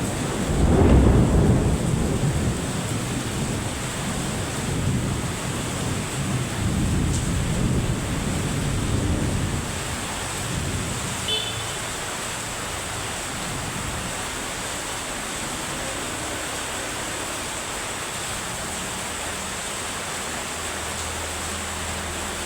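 Heavy rain falling steadily, with a long roll of thunder rumbling over the first ten seconds. The thunder is loudest about a second in, then dies away to the even hiss of the rain.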